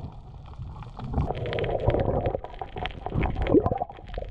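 Water gurgling and bubbling, with many sharp clicks scattered through it.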